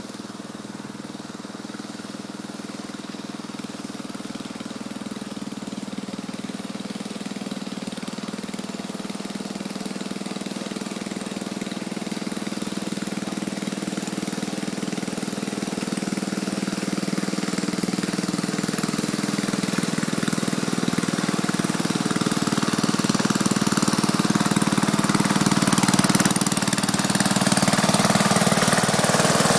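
Trusty two-wheeled tractor's engine running steadily as the tractor drives along towing a loaded trailer. It grows steadily louder as it approaches and is loudest as it passes close by near the end.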